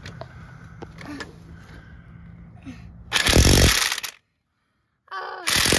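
Impact wrench hammering a lug nut tight on a car wheel: one loud rattling burst of about a second, then a shorter burst near the end.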